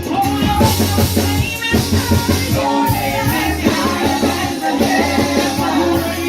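Live worship band playing a song with drums, bass and singing voices.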